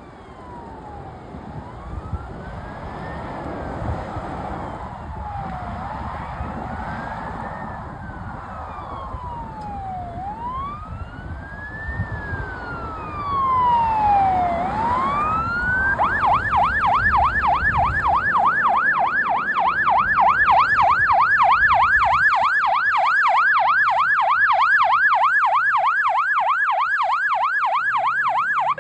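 Fire engine siren sounding a slow wail, its pitch rising and falling about every four and a half seconds and growing louder. About sixteen seconds in it switches to a fast yelp of about three to four sweeps a second.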